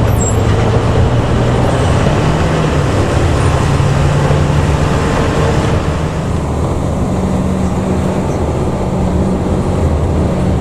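Bus engine and its growling ('ngorok') exhaust running under way, a loud steady drone whose pitch steps up about two seconds in and again about seven seconds in.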